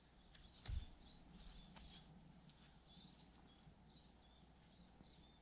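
Near silence with faint birds chirping, short high calls every half second or so, a soft thump a little under a second in, and a few light clicks.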